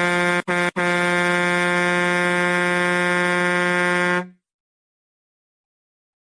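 Horn sound effect: a couple of short honks, then one long steady blast held for about three and a half seconds that cuts off abruptly, followed by silence.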